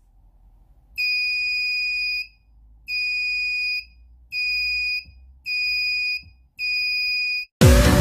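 Piezo buzzer of a homemade 9-volt door security alarm sounding: five steady high-pitched beeps, each about a second long, with short gaps between them. Background music starts just before the end.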